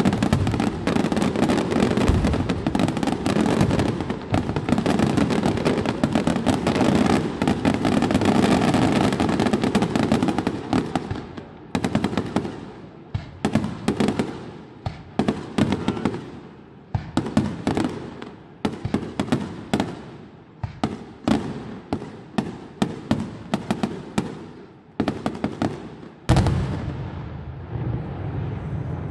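Aerial fireworks finale: a dense, unbroken barrage of bursting shells and crackle. After about ten seconds it thins out into separate bangs with quieter gaps between them. Near the end a steady rushing noise suddenly takes over.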